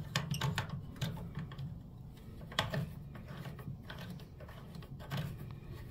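Brass retainer ring being threaded by hand onto a Kohler bathroom faucet body over the new cartridge: scattered light metallic clicks and scrapes, a few of them louder.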